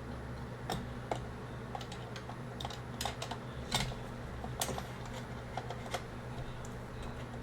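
Scattered small clicks and taps of a mini PC's case and internal parts being handled and fitted, over a steady low hum.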